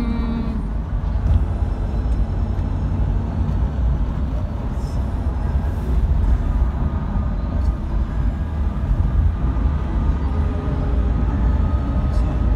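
Steady low road rumble and engine noise heard inside a car's cabin travelling at highway speed.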